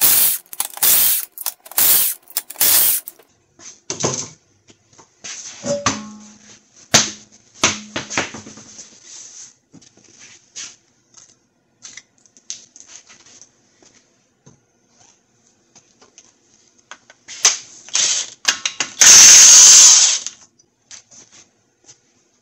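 Cordless impact wrench rattling the lug nuts off a front wheel in several short bursts about a second apart, followed by scattered clicks and knocks of tools being handled, and one longer loud burst of noise near the end.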